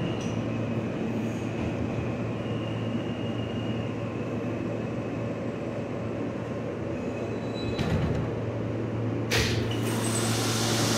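Inside an R160 New York subway car running between stations: a steady rumble of wheels on rail and running gear, with two short knocks near the end. A hiss then builds and the noise grows louder as the train comes into a station.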